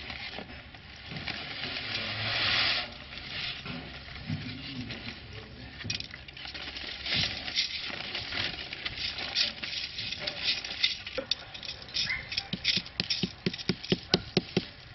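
Plastic sheeting rustling and soil being worked through a brass sieve, with gritty scraping and rubbing. In the last few seconds comes a quick run of sharp clicks and rattles as stones and grit are handled.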